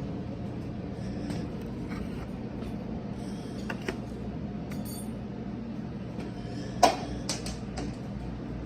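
Scattered metallic clinks and knocks of hand tools and metal parts, as on cylinder head studs, over a steady low hum. One sharp clink rings briefly about five seconds in, and the loudest knock comes about seven seconds in.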